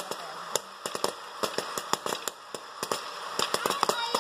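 Corn kernels popping in a mini hot-air popcorn maker: many sharp, irregular pops over the steady rush of its blower fan.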